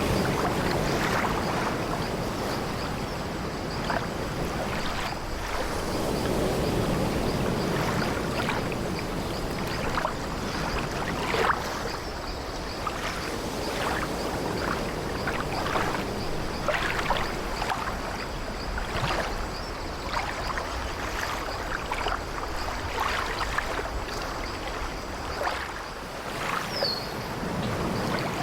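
Sea waves washing and swelling against an old wooden ship, with frequent short creaks from its wooden deck and timbers throughout.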